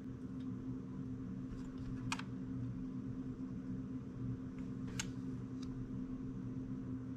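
A few light clicks as an RTX 3070 Ti Founders Edition circuit board is wiggled against its cooler, still held by thermal paste and pads. The clearest clicks come about two and five seconds in, over a steady low hum.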